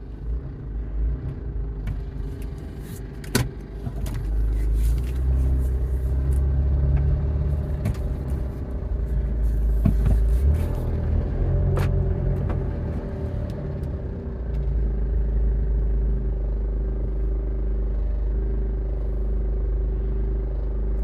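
A car engine running steadily with a low rumble and a few sharp clicks, the engine noise taken to be a sign of a fault.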